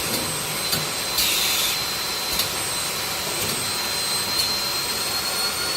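Cable production line machinery running steadily: an even whirring noise with a thin, constant high whine, and a short hiss a little over a second in.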